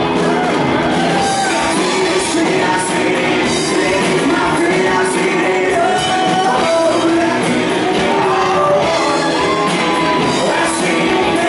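Live rock band playing loudly: electric guitars, bass guitar and drums, with a male singer singing into a microphone.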